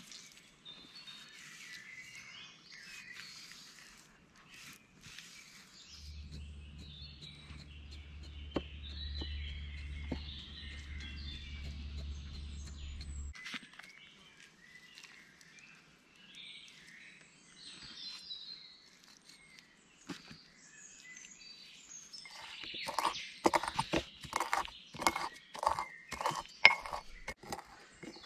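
Small birds chirping and singing. Near the end, a pestle pounds and grinds peppercorns in a ceramic mortar in quick sharp strikes, about three a second. A low steady hum is heard for several seconds in the middle.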